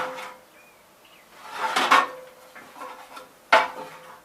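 Loose metal parts clanking and rattling as they are handled, then one sharp metallic knock about three and a half seconds in that leaves a brief ring.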